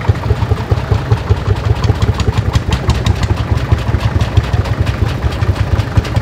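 Vintage tractor engine idling with an even, rapid beat.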